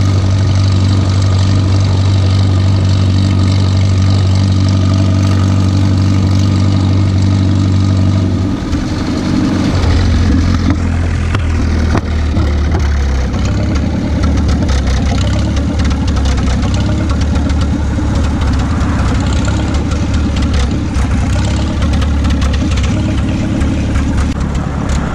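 McCormick-Deering Super M tractor's four-cylinder gasoline engine running steadily at road speed. About eight seconds in, its note drops lower and turns rougher as the tractor slows.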